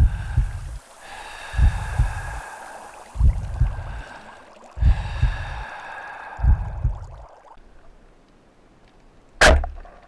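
Slow heartbeat thuds, a double beat about every second and a half, alternating with hissing breaths over bubbling water. Near the end comes a single sharp crack, a speargun firing underwater.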